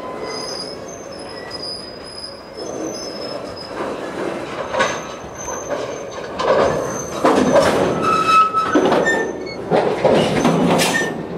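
Freight cars rolling past close by: steel wheels squeal in thin high tones and clank and rattle over the rail. The clanking grows louder and busier in the second half.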